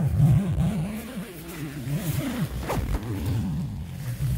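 Nylon tent door zipper being pulled closed in a run of short strokes. Its rasp rises and falls in pitch as each pull speeds up and slows down.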